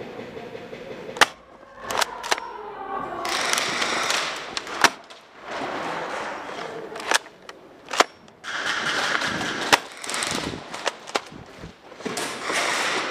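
Airsoft guns firing during an indoor close-quarters game: about eight sharp single shots spaced unevenly, with stretches of noise between them.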